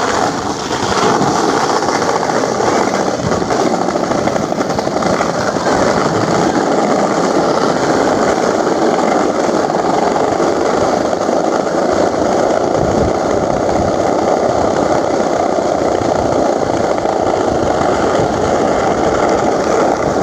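Skateboard wheels rolling down a steep paved slope: a loud, steady rumble that builds up about a second in and then runs on without a break.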